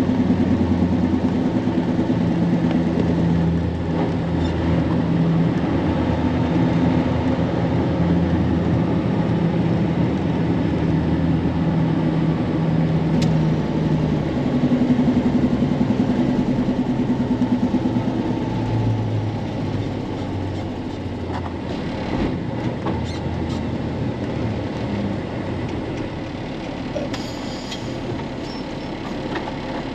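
A vehicle engine and road noise while driving, steady at first, then the engine note drops and quiets about two-thirds of the way through as the vehicle slows. A few faint clicks come near the end.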